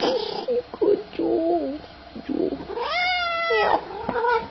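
Domestic cat calling over and over: several short, low, warbling calls, then one long meow about three seconds in and a brief call near the end. It is meowing so insistently that it could go hoarse.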